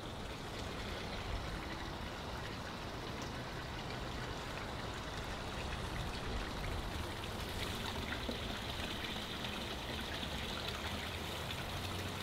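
Water running steadily with a trickling, splashing rush that grows a little louder toward the end.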